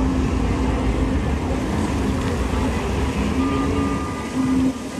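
Steady low rumble of a moving vehicle, with faint intermittent tones above it.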